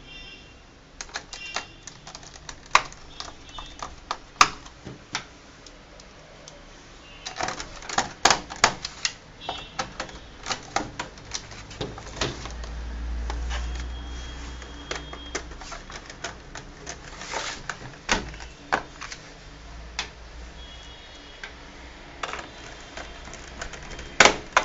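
Irregular clicks and taps of a small screwdriver turning screws back into the plastic bottom panel of a Dell Inspiron 15R laptop, with knocks from the laptop being handled.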